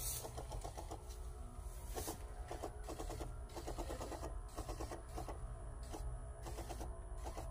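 Small sprayer pump motor running with a steady hum and rapid ticking in uneven pulses while fungicide is sprayed from the wand.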